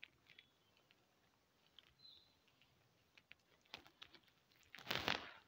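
Faint, scattered clicks and handling noises from fabric being moved and adjusted under a sewing machine's presser foot, with a brief rustle of cloth near the end.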